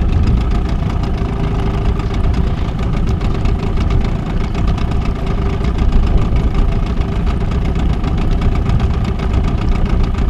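Small outboard motor running steadily at slow trolling speed, pushing the boat along smoothly.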